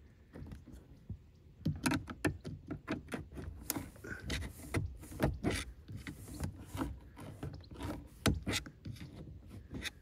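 Screwdriver clicking and scraping against the jammed boot lock latch of a VW Passat B8, levering at the latch hook to push it back. The clicks come irregularly, with no steady rhythm.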